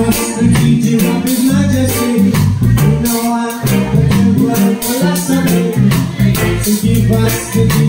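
Live band playing an upbeat song on keyboard, guitar and drum kit with cymbals, a strong bass line and a sung vocal over it.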